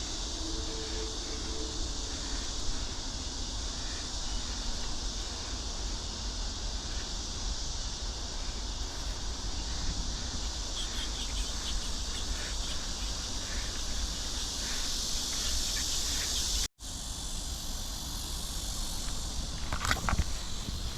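Steady high-pitched chirring of an insect chorus over outdoor background noise. It stops abruptly at a cut about 17 seconds in, and footsteps and rustling follow near the end.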